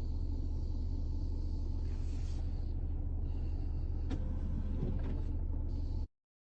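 Steady low rumble of a car idling, heard from inside the cabin, with a couple of faint clicks about four and five seconds in; it stops suddenly near the end.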